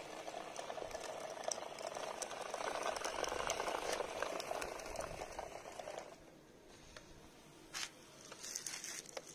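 Small battery-powered gear motor of a homemade RC toy tractor running, its wheels and trolley rolling and rattling on concrete. It grows louder as the tractor passes close, then drops off sharply about six seconds in, with a few light clicks after.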